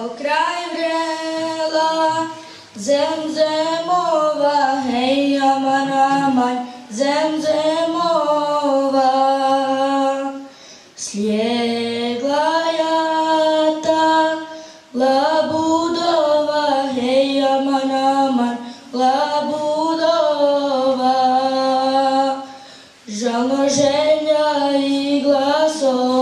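Group of young, mostly female voices singing an unaccompanied Islamic devotional hymn (ilahi) in unison. They sing in long held phrases about four seconds each, with short breaks for breath between them.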